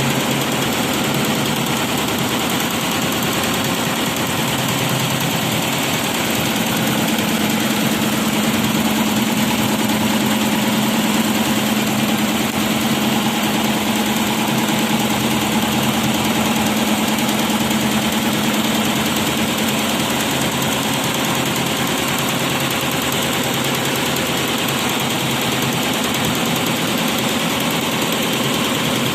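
Four-head computerized embroidery machine running steadily, its needles stitching a design with a continuous mechanical clatter and motor hum.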